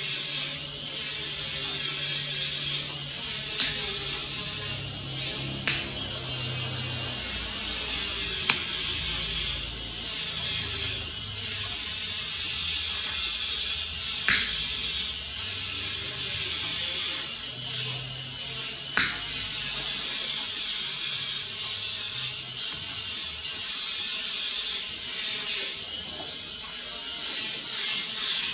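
Nail nippers snipping a thick, curled toenail: five sharp clicks spread out over the span, over a steady high hiss.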